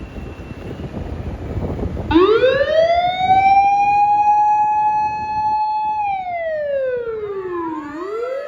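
Fire engine mechanical motor siren starting about two seconds in: it winds up in pitch, holds a steady wail, then winds down and begins winding up again near the end. Low road rumble before it starts.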